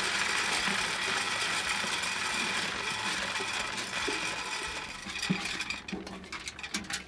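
Wood pellets pouring out of a pellet grill's hopper clean-out chute into a plastic bucket, a steady rushing hiss. About five seconds in, the hiss gives way to scattered clicks and knocks as pellets are scraped out of the hopper by hand.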